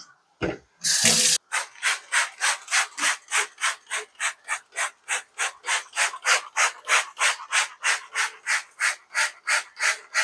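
A spray bottle squirts cleaner once, then a cloth scrubs the kitchen counter in quick, even back-and-forth strokes, about three a second.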